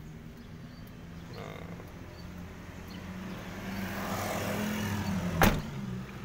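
Isuzu Panther's 2.5-litre direct-injection diesel idling steadily, with one sharp thump about five and a half seconds in as a car door is shut.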